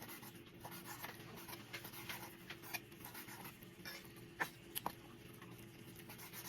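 Faint scratching and rustling with scattered light taps, a few sharper clicks about four to five seconds in, over a low steady hum.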